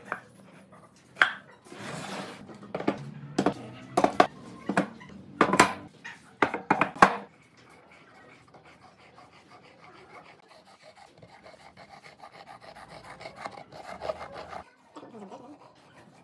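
Thick pine beams knocking and clunking on a wooden workbench as they are handled and set in place: a run of sharp knocks over the first seven seconds, then only faint handling sounds.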